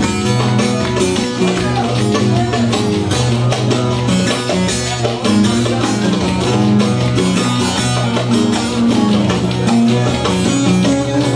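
Instrumental passage of a Turkish folk song: plucked string instruments play the melody over a steady beat, with no singing.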